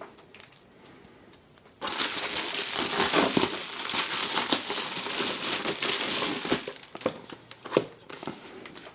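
Parcel packaging being opened by hand: a dense crinkling and tearing rustle starts suddenly about two seconds in, then thins to scattered rustles and clicks over the last couple of seconds.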